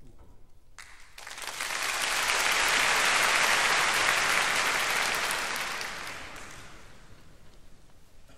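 Concert audience applauding, swelling up about a second in and dying away after a few seconds.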